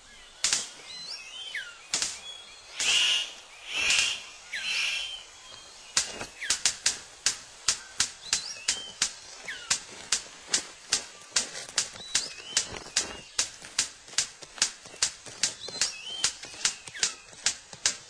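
Male superb bird-of-paradise in courtship display: a few rustling swishes, then sharp clicks about three a second from around six seconds in, with short chirps mixed in.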